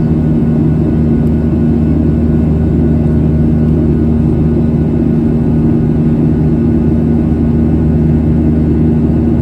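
Boeing 737-800's CFM56-7B turbofan engines at climb thrust, heard from inside the cabin beside the engine: a loud, steady drone with a low hum of steady tones.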